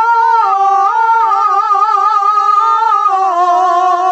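A woman singing an unaccompanied jota. She holds one long, wavering sung phrase and steps down in pitch about three seconds in.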